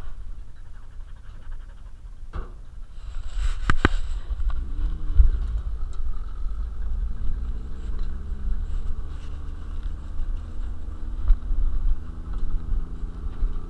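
Open Jeep driving over a dirt road, heard from a camera riding on a dog: a constant low wind-and-road rumble on the microphone, a few sharp clicks about two to four seconds in, then the engine's pitch climbing steadily from about halfway as the Jeep accelerates.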